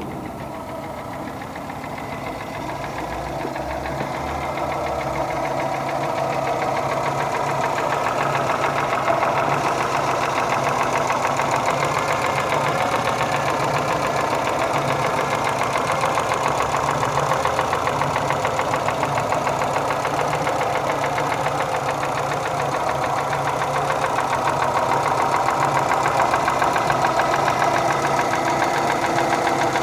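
Engine running with a rapid, even knocking tick, the engine knock that is the fault under investigation. It grows louder over the first several seconds, then holds steady.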